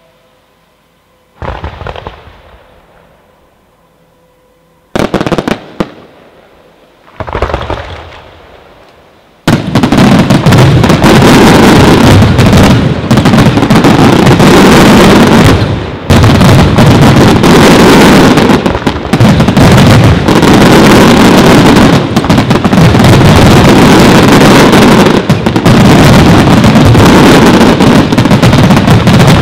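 Aerial firework shells bursting. Three separate bangs with echoing tails come in the first eight seconds, then from about nine seconds in a dense, continuous barrage of bursts so loud that it overloads the recording.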